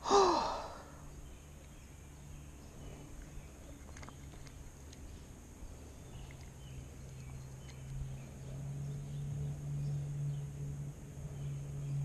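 A man's short sigh-like exclamation, falling in pitch. It is followed by a few faint clicks and then a faint, steady low hum that grows a little louder in the second half.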